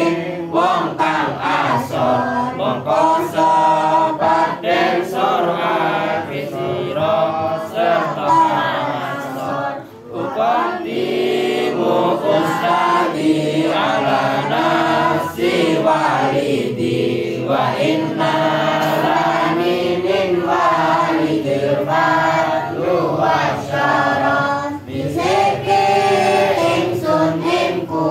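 A group of young voices, girls and boys, chanting an Islamic devotional text together in a melodic unison, led through a microphone, with a short break for breath about ten seconds in.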